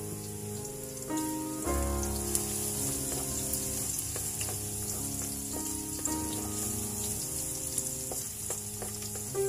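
Minced garlic sizzling in hot oil in a nonstick wok as a wooden spatula stirs it, over background music with held notes.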